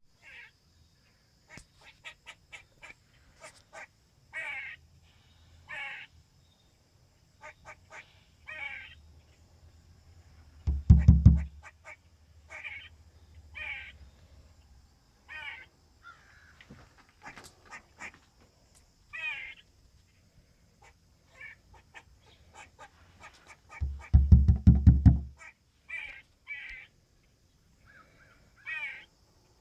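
Eastern gray squirrel giving repeated barking chirps, a short call about every second or so. Twice a loud low rumble briefly covers the calls, once about eleven seconds in and again for over a second around twenty-four seconds.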